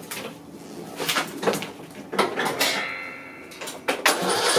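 Knocks and clunks as a person climbs onto a riding lawn mower and settles into the seat, with a brief whine about three seconds in. About four seconds in, the mower's Briggs & Stratton 18.5 hp Intek engine starts and keeps running loudly.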